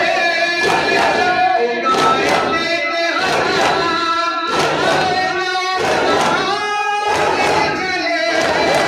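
A group of men chanting a Muharram lament together, punctuated by a steady beat of matam strikes (mourners' hands hitting in unison) a little more than once a second.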